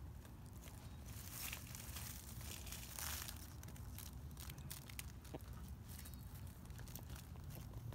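Siberian Husky puppy gnawing on a twig among dry leaves: faint scattered crunches and crackles, with two brief rustling swells, about a second and a half in and again at three seconds.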